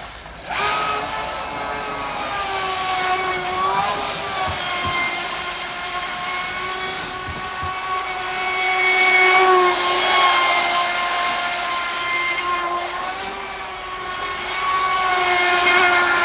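The brushless electric motor of an H-King Aquaholic V2 RC deep-vee racing boat whines steadily as the boat runs on the water, the pitch wavering a little as the throttle changes. The hiss of spray swells around the middle.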